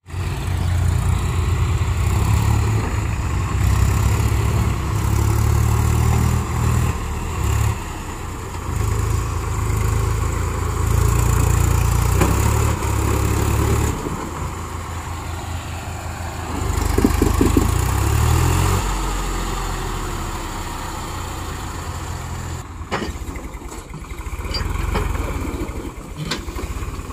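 Swaraj diesel tractor engines running hard, the revs surging up and down as a tractor stuck in mud is pulled out. The engine note drops to a lower, steadier running after about two thirds of the way, with a few sharp knocks near the end.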